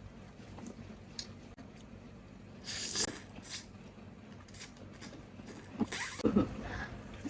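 Eating sounds from close up: chewing and mouth noises, with a short hissy slurp or crunch about three seconds in and another cluster of mouth sounds around six seconds.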